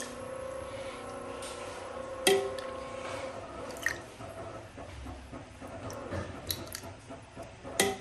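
A metal spoon stirring and mashing thick curd in a metal pot makes soft, wet squishing sounds. A few sharp clinks of the spoon against the pot come through, the loudest about two seconds in.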